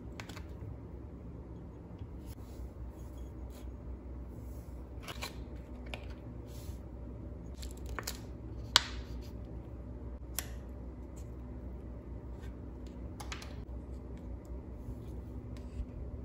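Thin clear plastic candy mold tray flexing and crackling as set gummy pieces are pushed out of it by hand, with scattered sharp clicks, the loudest a little under nine seconds in. A low steady hum runs underneath.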